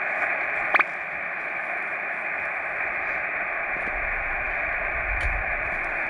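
Portable ham radio receiver hissing steadily through its speaker on an empty frequency, with one brief sharp blip just under a second in; the channel is clear, with no station answering.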